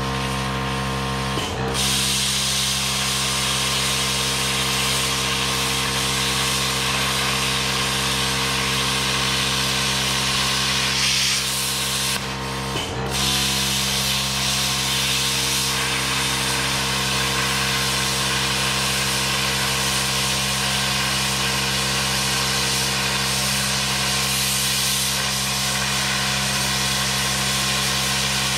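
Hypertherm Powermax 30 Air plasma cutter cutting steel plate: the loud steady hiss of the air-plasma arc over the steady hum of the machine's built-in air compressor. The arc starts about a second and a half in, cuts out briefly around the middle, and starts again.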